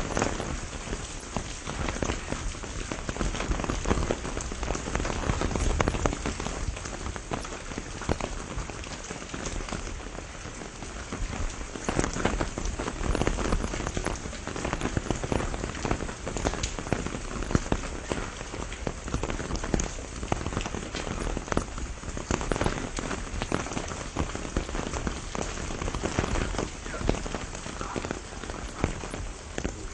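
Steady rain shower falling, with many individual drops striking close by, heard as a dense even hiss full of small sharp hits.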